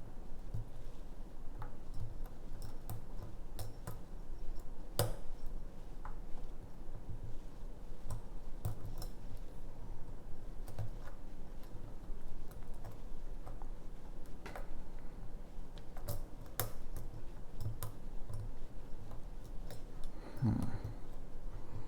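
Small, irregular metallic clicks and ticks of a lock pick working the pins inside a pin-tumbler lock cylinder held under tension, with a soft knock near the end.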